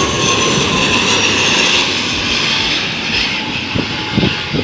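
Twin-engine turboprop airliner passing low on its landing, the engines' steady whine and propeller noise with a slowly falling pitch, easing off near the end. A few low thumps come in the last second.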